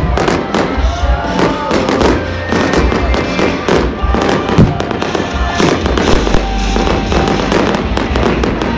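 Fireworks going off in quick succession: many sharp bangs and crackles over deep booms, with music playing alongside.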